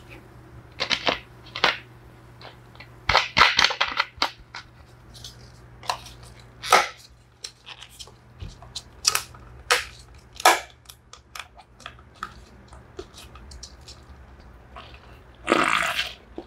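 Plastic handling noises: a series of clicks, taps and crackles as a clear plastic lid is pressed and snapped onto a plastic cup of iced cola, with knocks of things set down on the table. A low hum in the background cuts out about seven seconds in.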